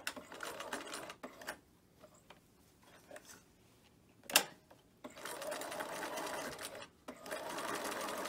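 Bernina 1130 sewing machine stitching in short runs: a brief run at the start, a pause with a single sharp click about four seconds in, then steady stitching from about five seconds that stops briefly near seven seconds and starts again.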